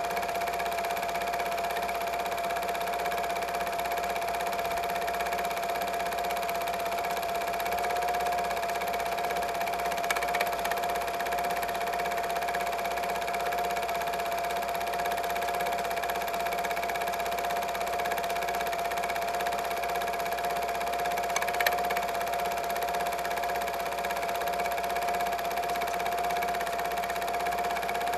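Steady whir of a small motor: one constant mid-pitched whine over even hiss, with two faint clicks about ten and twenty-one seconds in.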